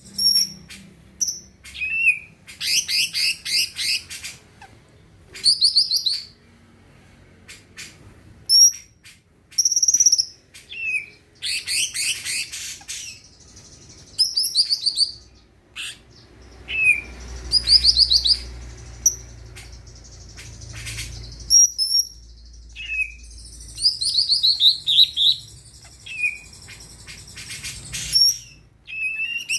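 Green leafbird (cucak ijo) singing: short whistled notes alternate with bursts of fast, rapidly repeated high chirps, in phrases a second or two apart.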